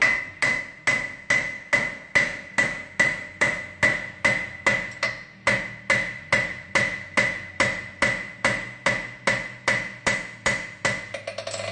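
A farrier's hammer strikes a steel horseshoe on the anvil horn to shape a side bone shoe. The blows come in a steady beat of about two and a half a second, each with a ringing note, and turn into quicker, lighter taps near the end.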